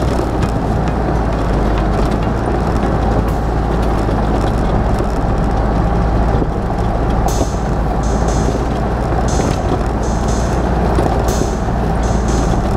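Steady low rumble of a four-wheel-drive vehicle driving, engine and tyres, under background music; about seven seconds in, a regular beat of crisp high ticks, about two a second, joins.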